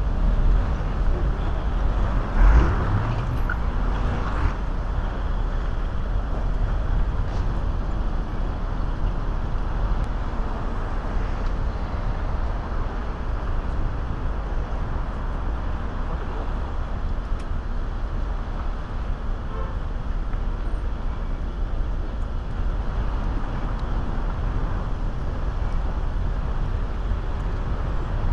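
Steady city street traffic noise, cars passing through a pedestrian crossing with a constant low rumble. A brief louder swell comes about two and a half seconds in.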